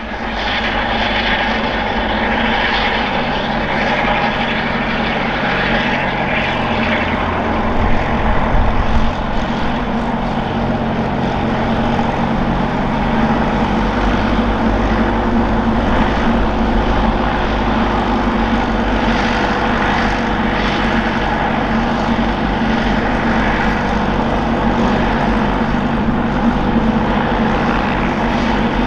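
Robinson R22 Beta II helicopter's four-cylinder Lycoming piston engine running steadily at low power on the ground, with the rotors turning, during warm-up after engine start. The sound swells slightly about eight seconds in.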